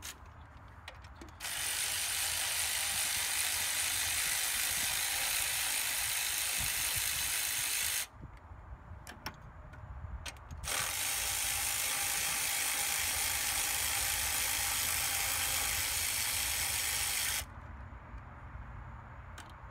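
Power ratchet running in two long, steady runs of about six seconds each, with a short pause of a few clicks between them, backing out the bolts that hold the fuel rail.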